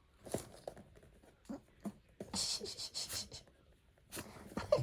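Dog panting in short breathy huffs during a tug game, with small clicks and scuffs scattered around it; the longest huff comes about halfway through.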